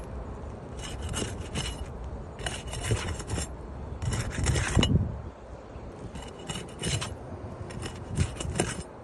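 Roof shingles scraping and rubbing as they are lifted and worked during a shingle repair, in about five separate scraping bouts, the loudest about four to five seconds in.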